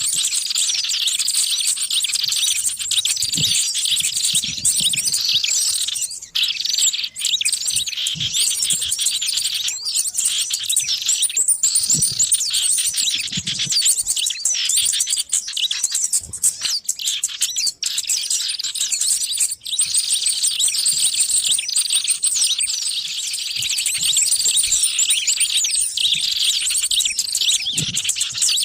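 Dense, unbroken chorus of many small birds chirping and twittering over one another in quick, high, sweeping notes: a bird-lure recording made to draw in wild small birds.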